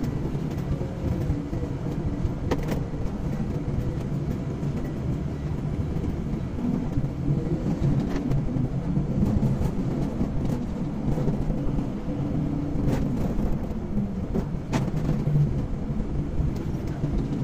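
A car driving along a road, heard from inside the cabin: a steady low engine and tyre rumble, with a few light clicks or knocks along the way.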